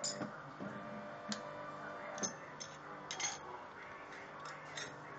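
Irregular clicks and clacks of small sheet metal parts being set into and taken out of a press tool's die by hand, with music playing in the background.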